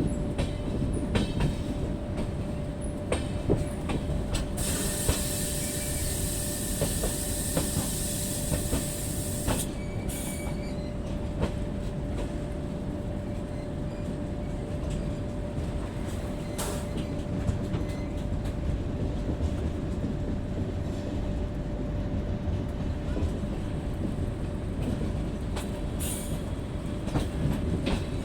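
Indian Railways passenger train running on the track: a steady rumble of coaches and wheels with rail clatter and a thin steady wheel squeal. A hiss rises about five seconds in and stops about ten seconds in, and there are a few sharp knocks later on.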